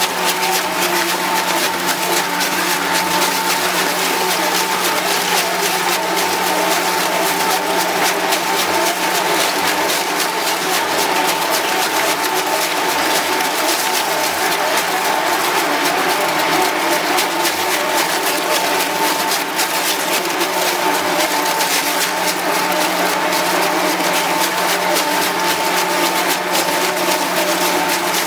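Twin-shaft shredder running and chewing up whole car tyres: a steady machine tone under continuous irregular crunching and crackling as the cutter teeth tear the rubber.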